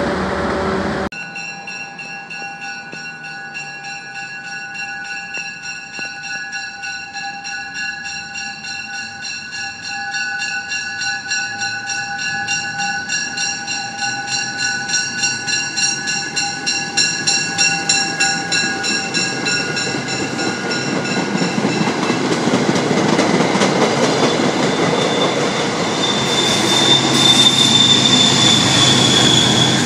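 MBTA commuter train rolling past, its coaches giving a steady high-pitched wheel squeal over a rhythmic pulse of wheel noise. The squeal fades after about twenty seconds as the louder noise of the MPI HSP46 locomotive pushing at the rear builds and peaks near the end.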